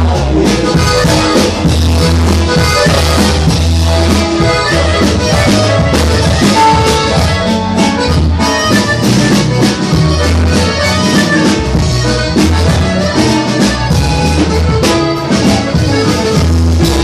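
Live norteño band music played loud: accordion leading over a bass line and drum kit.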